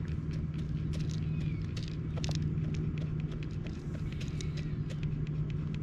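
A brown hen pecking feed pellets from a plastic cup: a run of short, irregular clicks over a steady low hum.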